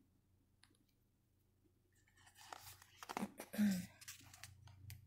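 Near silence, then paper rustling and soft handling noises as a hardcover picture book's page is turned, with a brief louder rustle about three and a half seconds in.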